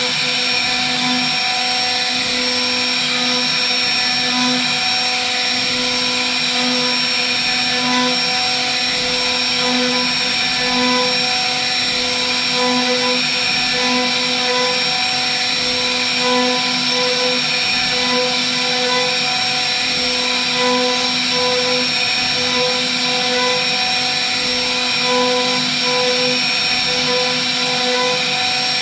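CNC router spindle running at speed, its end mill milling a pocket into a wooden board: a steady high whine over cutting noise, the tone swelling and easing every second or so.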